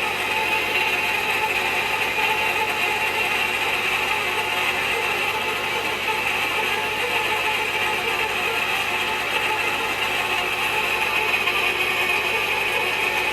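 Manual hot-tapping machine cutting into a steel pipe: a steady mechanical cutting noise at even level, without pauses.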